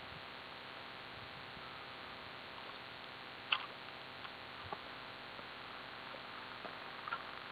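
Faint, steady outdoor background hiss with a few short sharp ticks, the clearest two about halfway through.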